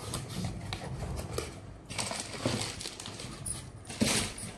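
Mixer-grinder jars and their packaging being handled: irregular clicks, knocks and rustling, with a louder knock about four seconds in.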